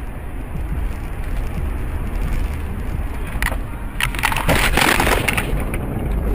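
Steady low road rumble inside a moving car, then about four seconds in a car collision: a short knock followed by over a second of loud crunching impact noise.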